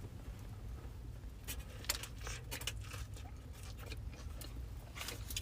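Chewing a bite of tuna sandwich close to the microphone: scattered short, wet mouth clicks and smacks over a low steady hum.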